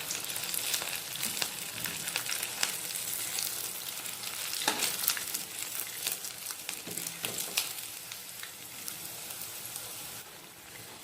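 Potato-semolina fingers sizzling and crackling in medium-hot oil in a kadhai as they are flipped and turned, with a few sharper clicks and scrapes of the utensil against the pan. The sizzle eases a little near the end.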